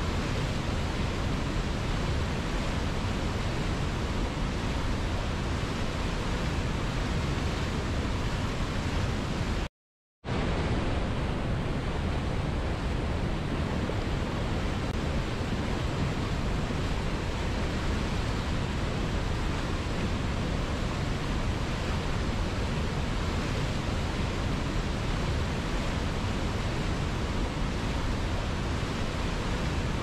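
Steady rush of white water from a river cascading over rapids and a waterfall. It cuts out completely for about half a second, roughly ten seconds in, then carries on unchanged.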